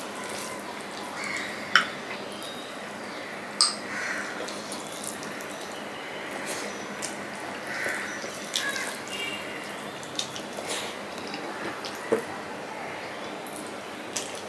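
Close-miked eating sounds of a man eating rice and mutton by hand: wet chewing and lip smacks, with a few sharp smacking clicks over a steady hiss.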